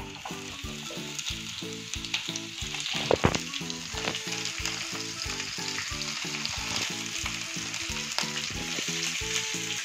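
Sliced bell peppers, carrots and beans dropped by hand into hot oil in a non-stick frying pan, sizzling steadily, with a sharper clatter a little after three seconds in.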